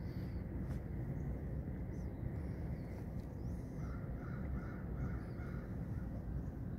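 A crow cawing, a quick run of about six caws about four seconds in, over a steady low rumble.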